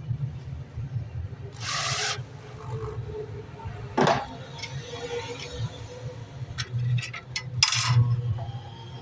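Woodworking tool sounds on an MDF drawer: two short hissing bursts, a quick falling sweep about four seconds in, and a few sharp clicks, over a steady low hum.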